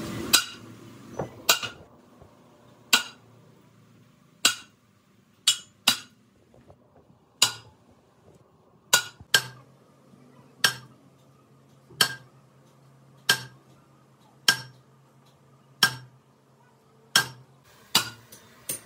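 Hammer blows on a steel truck bogie bracket as it is driven onto its shaft tube: single ringing metallic strikes about every second and a half, with a few quicker ones near the end.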